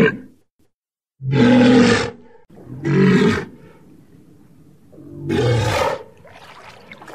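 Walrus calling: the end of one call right at the start, then three loud calls of about a second each, the third after a pause of over a second.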